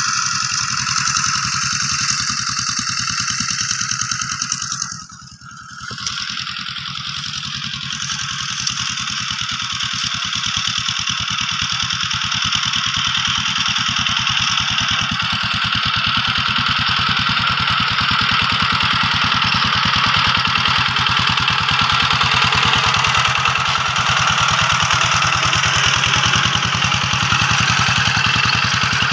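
Two-wheel hand tractor's engine running steadily under load as it pulls cage wheels through wet rice-field mud. It dips briefly about five seconds in, then grows louder as the tractor comes closer.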